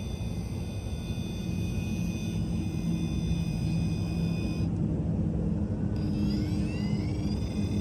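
Brushless electric motor and drivetrain of an Axial Capra RC crawler (Holmes Hobbies Revolver 1800kv motor on a Castle Mamba Micro X ESC) whining at crawl speed over a low rumble. The whine cuts out about five seconds in and comes back rising in pitch as the motor picks up speed.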